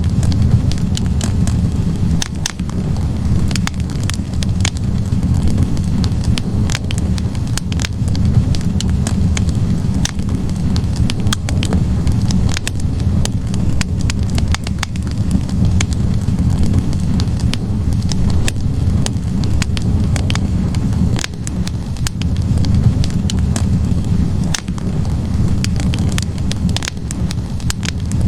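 Wood logs burning in a fireplace: a steady low rush of flames with frequent sharp crackles and pops from the wood.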